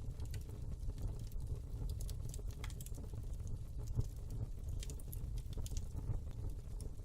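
Fire crackling in a fireplace: irregular small pops and crackles over a steady low rumble.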